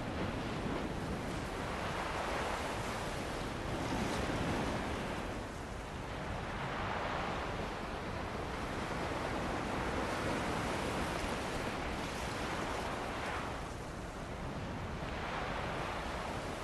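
Ocean surf washing onto a beach in wind, a continuous rush of water that swells and eases every two to three seconds as the waves break.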